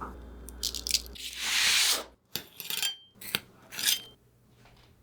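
Crunching and scraping handling noises from baked brioche: one long crackly swell starting about a second in, then a few shorter crackles.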